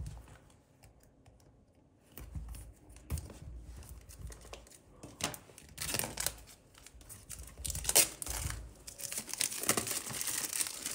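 Clear plastic shrink-wrap being peeled and torn off a small cardboard box, crinkling and crackling. It starts about two seconds in, with a few sharp crackles, and grows denser near the end.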